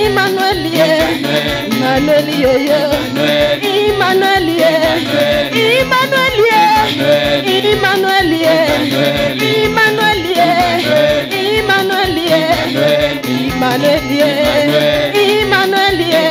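Live gospel praise music: an electronic keyboard over a steady beat, with women singing into microphones through the PA.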